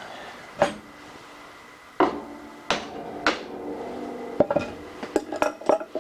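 Hammer tapping a metal part to nudge it into square: four sharp taps spread over the first three and a half seconds, then a quicker run of taps near the end, each with a short metallic ring.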